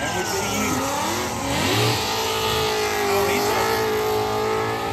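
Car engine revving hard, its pitch swinging up and down, with tyres squealing as a police-style car spins burnout donuts.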